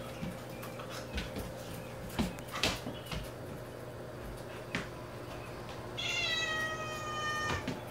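Tabby cat giving one long, drawn-out meow, about a second and a half long, starting about six seconds in. Before it come a few light clicks and knocks, over a steady low hum.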